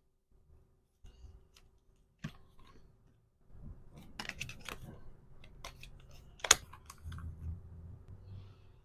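Hand packaging of small items: a quick run of crisp clicks and taps about four seconds in, one sharp loud click a little later, then soft rubbing and handling noise.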